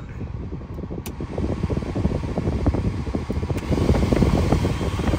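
Car air-conditioning blower running, its air stream buffeting the microphone as a low rumble that grows louder. A single light click about a second in.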